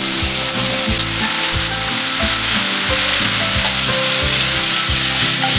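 Shrimp sizzling steadily in hot oil in a nonstick frying pan.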